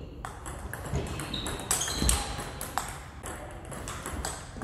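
Table tennis rally: a celluloid-type ball struck back and forth by rubber-faced bats and bouncing on the table, a quick irregular series of sharp clicks.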